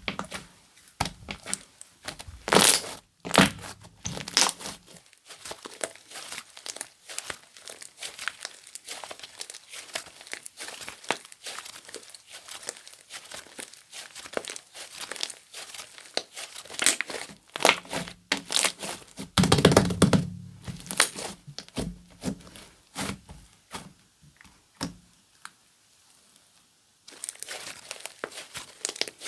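Slime being worked by hand, giving a quick run of small crackling, clicking and tearing sounds, with a few louder crackles about three seconds in and again about two-thirds of the way through.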